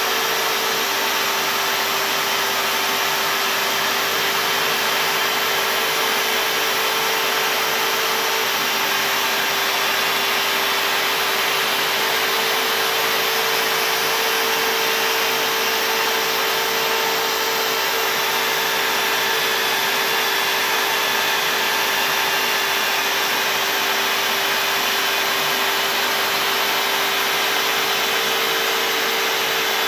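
Homemade CNC router's spindle running steadily as its bit carves grooves into white-faced MDF, together with the rush of the dust-extraction vacuum drawing through the hose beside the bit. A constant whine under a steady rushing noise, with no change in pitch or level.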